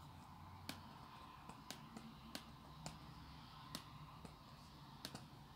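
Faint, unevenly spaced clicks of a computer's pointer button, about ten of them, over a low steady hum, as pictures are dragged into place on screen.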